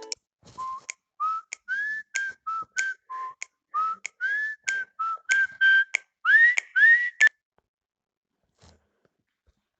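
Honor smartphone ringtone: a short melody of whistle-like notes, several of them sliding upward, with a light click at the start of each note. It stops about seven seconds in.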